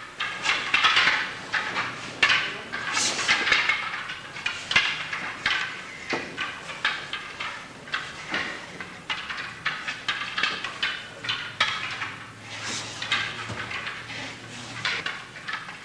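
Wooden practice swords (bokken) clacking together as several pairs strike at once, a dense irregular run of sharp wooden knocks.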